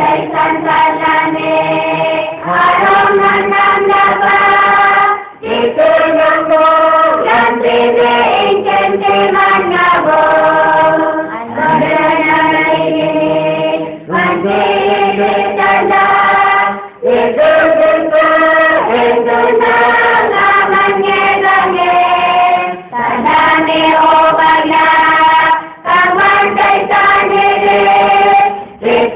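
Large choir, mostly young women, singing in phrases of a few seconds each with brief pauses between them.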